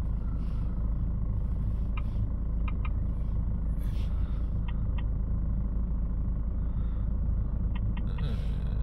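Ford S-Max's 2.2 diesel engine idling, a steady low rumble heard from inside the cabin. A few light clicks come in small groups as keys are tapped on the scan tool's touchscreen keyboard.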